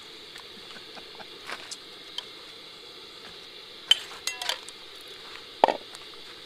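A metal ladle and spoons clinking and tapping against an aluminium cooking pot and a bowl: faint taps while stirring, a few sharp ringing clinks about four seconds in, and one more clink near the end.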